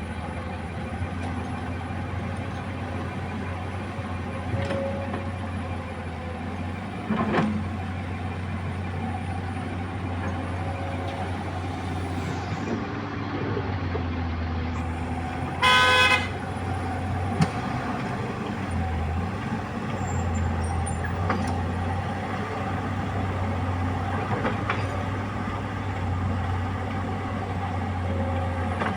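Komatsu PC200 excavator's diesel engine running steadily under load while digging and loading, with a clank about a quarter of the way in. About halfway through, a vehicle horn sounds once in a short blast.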